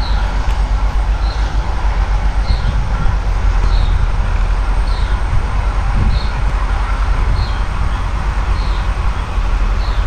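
Wind rumbling on the microphone, with a bird repeating a short high chirp about every second and a quarter.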